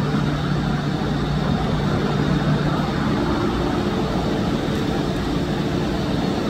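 Steady low rumble of urban background noise: traffic and machinery hum with a constant hiss, no distinct events.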